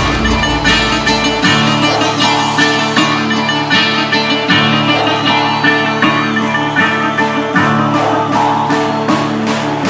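Electronic dance track: a plucked bouzouki melody over a steady beat, with no heavy bass under it.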